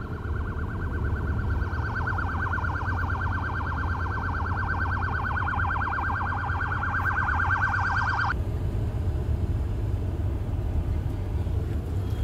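Electronic emergency-vehicle siren in a fast, even warble, cutting off suddenly about eight seconds in, over a steady low rumble of traffic.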